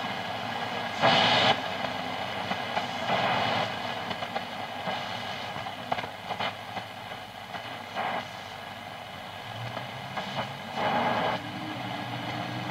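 Grundig 3160 tube radio being tuned between stations: the loudspeaker gives out hiss and crackling static with several short louder bursts of noise, and a low steady whistle comes in near the end.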